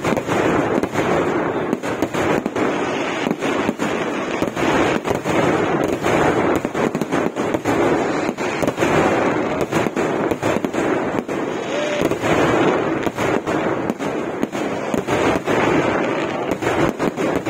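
Vedikettu fireworks barrage: a dense, unbroken run of firecracker bangs and crackling, many blasts a second, with no let-up.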